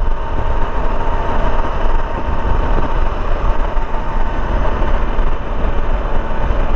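Honda XRE 300 motorcycle running steadily at highway speed, its single-cylinder engine under a heavy, even rush of wind on the microphone.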